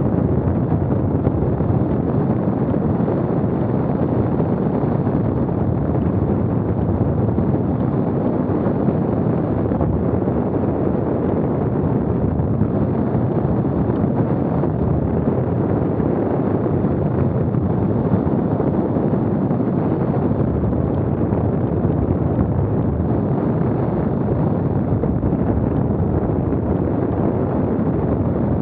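Wind buffeting the microphone: a steady rushing rumble with no let-up.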